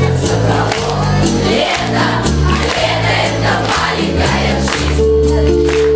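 A large group of young voices singing a song together over an amplified backing track with a stepping bass line.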